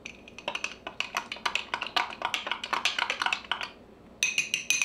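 Long metal bar spoon stirring a cocktail in a glass: rapid clinking of metal on glass, about eight to ten clinks a second, pausing briefly near the end. This is followed by a few sharper clinks that leave the glass ringing.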